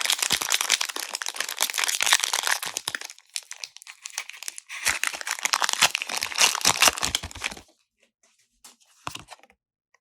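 Foil Pokémon booster pack wrapper being torn open and crinkled, in two stretches of dense crackling of about three seconds each, going quiet apart from a few small clicks near the end.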